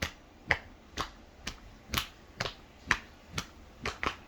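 A child's hands patting on their legs in a steady rhythm, about two sharp pats a second, with a quick double pat near the end.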